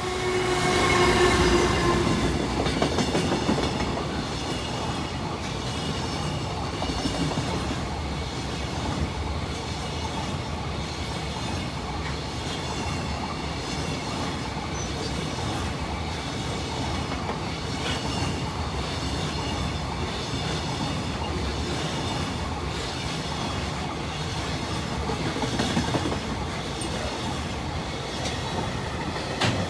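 A freight train passes close by. In the first couple of seconds the EF210 electric locomotive goes past with a whine from its traction motors. After that the train's wagons roll by in a long steady rumble, with the clickety-clack of wheels over rail joints.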